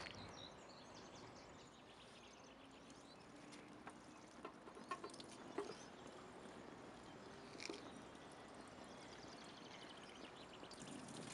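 Near silence with faint bird chirps and a few soft clicks scattered through the middle.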